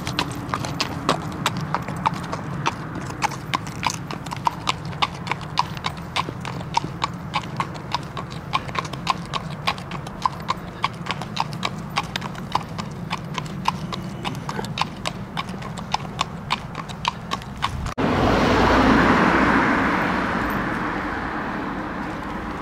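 Steady, even clopping of steps on hard ground, about three a second. Near the end it cuts off abruptly and a loud rushing noise swells and then fades.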